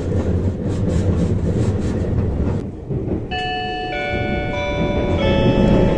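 Limited express train running, a steady rumble with rail clicks. A little over three seconds in, the onboard chime begins over it: a short melody of sustained, bell-like notes stepping in pitch, the signal that precedes an onboard announcement.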